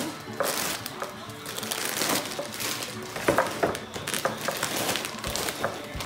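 Plastic zip-top bags crinkling and rustling in irregular bursts as they are handled and packed, over soft background music.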